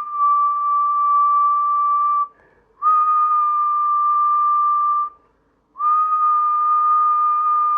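A steady, high whistled note held three times with short breaks between. It serves as a test tone fed into a CB radio's microphone to modulate the transmitter for an oscilloscope check. The first note ends about two seconds in, the second runs from about three to five seconds, and the third starts near six seconds.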